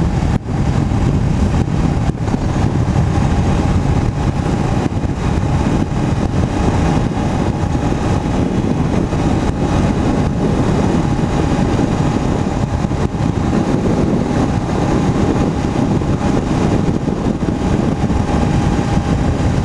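2014 Honda CBR500 motorcycle riding at a steady road speed: wind noise rushing over the microphone, with the engine's steady drone beneath it.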